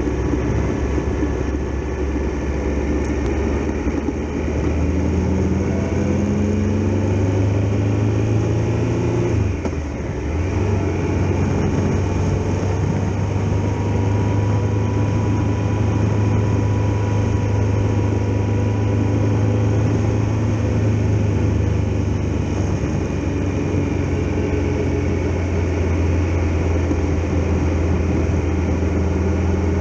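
Triumph Tiger Explorer XRx motorcycle's three-cylinder engine running on the road with wind and road rush. The engine note rises for a few seconds, dips briefly about ten seconds in, then holds steady.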